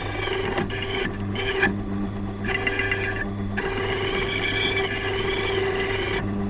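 Silca Lance key-cutting machine running, its cutter cutting into a key with a steady motor hum under a rasping cutting noise that breaks off briefly several times as the cutter leaves and meets the metal.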